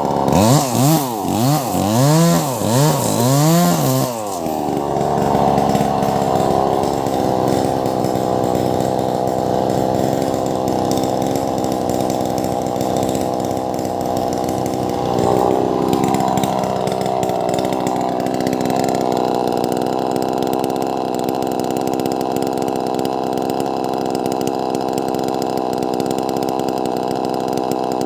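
Wagner 580 two-stroke chainsaw revved up and down several times, then held at high revs and running steadily as it cuts lengthwise through a large log, with a brief dip in engine pitch about halfway through.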